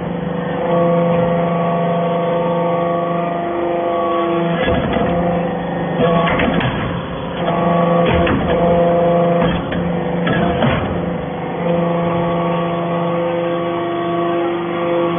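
Hydraulic briquetting press running while it compacts aluminum turnings into briquettes: a steady pitched hum from its motor and pump, broken several times by rougher stretches of knocks and noise as the ram works.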